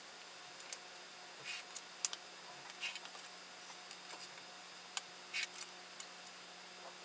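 Pencil strokes drawn along a stainless steel ruler on paper: several short, faint scratchy strokes, with light clicks and taps as the metal ruler is set down and shifted across the sheet.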